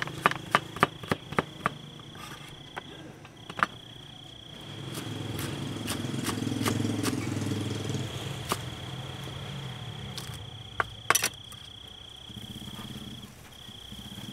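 A steady high-pitched insect drone with brief breaks, a small engine rising and fading in the middle, and sharp clicks: a quick run of them at the start and a few more later.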